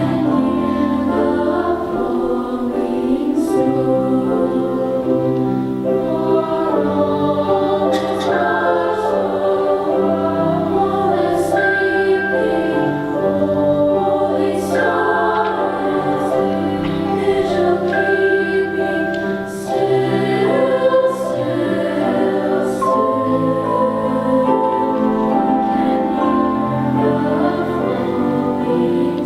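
Women's chorus singing in harmony, holding long sustained chords.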